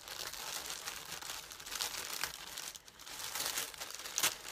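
Beauty box packaging being torn open by hand: crinkling and ripping that tears it to pieces despite trying to be neat, with a short lull past the middle and a sharper rip near the end.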